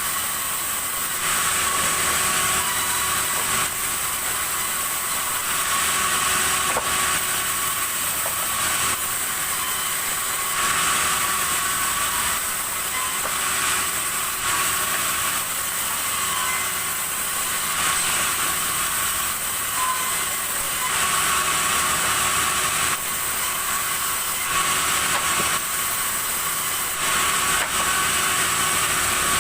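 Sawmill saw cutting red timber: a steady high-pitched hiss and whine that swells and eases every few seconds as the cut goes on.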